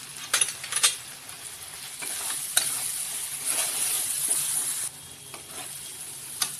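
Masala of tomato and powdered spices frying in oil in a kadai, sizzling, while a metal spatula stirs and scrapes the pan. There are a couple of sharp scraping clicks in the first second, and the sizzle is loudest from about two seconds in until nearly five.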